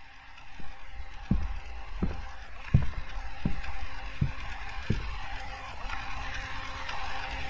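Deep kick-drum thumps of a music backing track, about six in a row, one every 0.7 s or so, each falling in pitch, over a hiss that swells toward the end.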